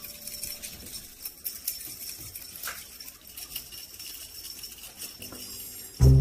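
Faint, irregular light jingling and clicking of a cat's fishing-rod teaser toy being played with. Loud music starts right at the end.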